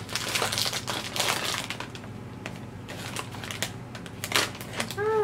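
Crinkling and crunching of a snack bag of butter-and-herb pretzels being handled, busiest in the first two seconds and then sparser clicks. A short rising-and-falling voice-like sound comes near the end.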